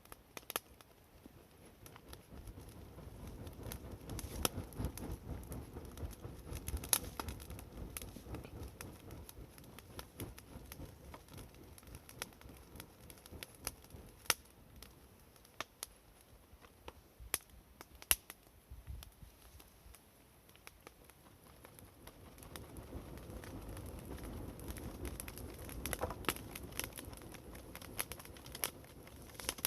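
Wood campfire burning, with scattered sharp crackles and pops, and a low rushing that swells up twice and dies back.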